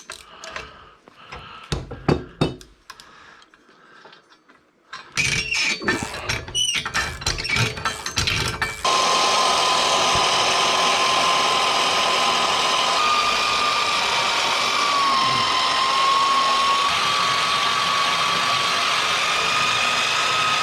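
Scattered clanks and clicks of steel pieces being handled, then about nine seconds in a power tool starts and runs steadily as it cuts through steel stock, its whine wavering in pitch as the cut loads it.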